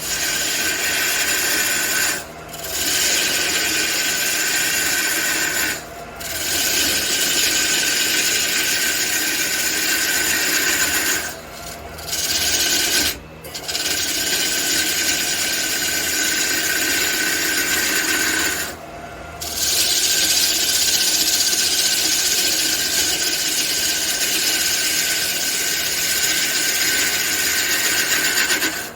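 Wood lathe spinning a large red cedar blank with a turning tool held against the wood, a steady scraping rush over the lathe's hum. The scraping breaks off briefly five times as the tool comes off the wood.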